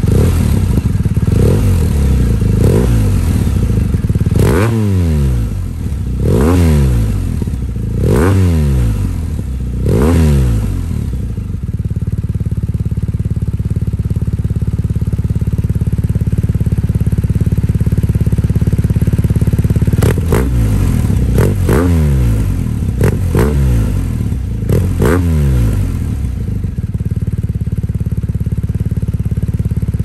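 BMW R1250RT boxer-twin engine through an Akrapovic titanium slip-on exhaust. It is revved in a quick series of throttle blips, each falling straight back, then settles to a steady idle. About two-thirds through comes a second series of blips, and then it idles again.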